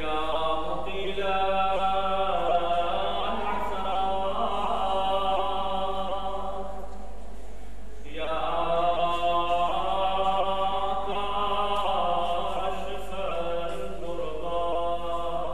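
A man's solo voice chanting without accompaniment in two long, drawn-out melodic phrases of about seven seconds each, with a short break between them.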